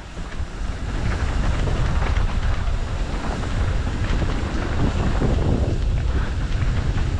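Wind buffeting a helmet-mounted camera's microphone as a downhill mountain bike descends a dirt trail. Under it are low tyre rumble and rattling over rough ground. It gets louder about a second in as speed picks up.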